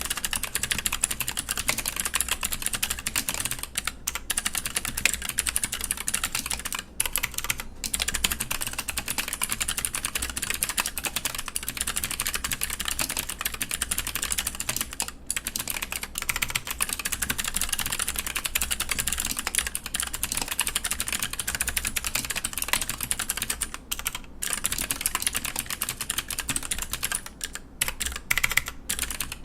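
Continuous steady typing on a VE.A split mechanical keyboard with Gateron Green switches swapped to Aristotle stems and GMK Hyperfuse keycaps, the keystrokes clicking rapidly with a few brief pauses.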